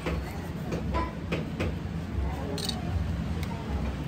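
Knife slicing and scraping the hide off a goat's head on a wooden chopping block: a series of short cutting and scraping clicks, over a steady low hum.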